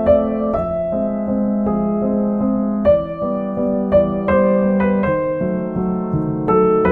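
Background music: a gentle piano piece with single notes and chords struck one after another.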